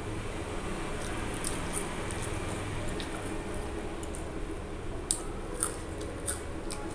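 A person chewing mouthfuls of rice pulao eaten by hand, with several sharp, wet mouth clicks and smacks, most of them in the second half, over a steady low background hum.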